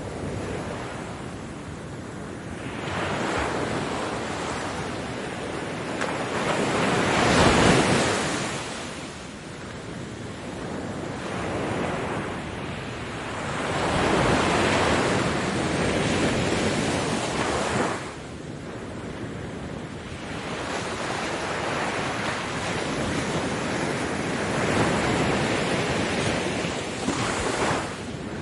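Ocean waves breaking and washing up a beach in several slow swells, the loudest about a quarter of the way in. One wash cuts off abruptly about two-thirds through.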